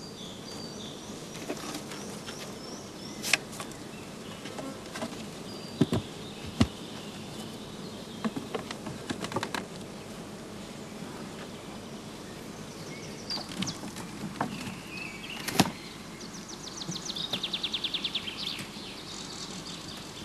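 Honeybees buzzing steadily around an opened hive, with scattered sharp clicks and knocks from the hive parts and tools being handled, and a brief fast rattle near the end.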